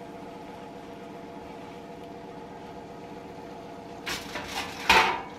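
Steady mechanical hum. About four seconds in, a short clatter ends in a sharp metal clank as a stainless steel pot lid is handled and set down on the stove.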